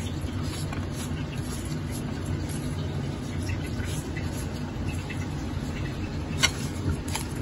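Steady low background hum, with a single sharp click about six and a half seconds in.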